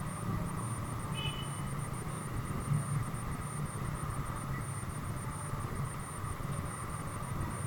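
Steady low vehicle rumble, with a brief high squeak about a second in.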